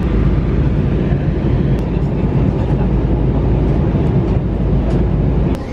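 Airliner cabin noise in flight: a steady, loud low roar of the engines and airflow heard from a window seat, cutting off abruptly near the end.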